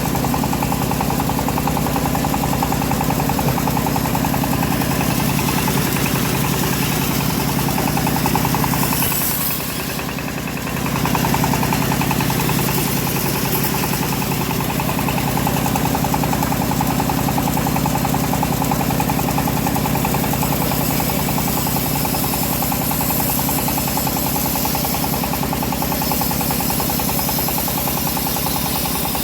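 Homemade bandsaw mill running steadily under engine power, with a brief dip in level about ten seconds in.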